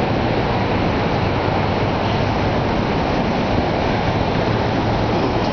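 Steady, loud rushing roar of Niagara Falls, an even wash of falling water with no breaks.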